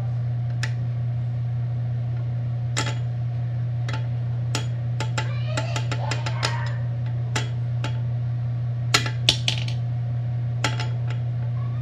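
Scattered sharp clicks and taps of a small rock knocking against a sink and faucet while being washed, a quick run of them about halfway through and a few louder knocks near the end, over a steady low hum.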